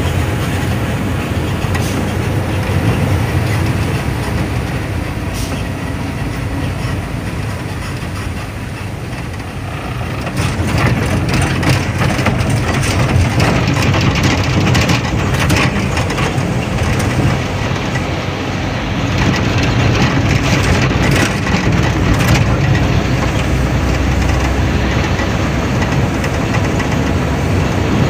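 Inside the cab of a moving sugarcane truck: the engine runs with a steady low drone under road noise, and from about ten seconds in the cab and body rattle and clatter louder over a rough, potholed road.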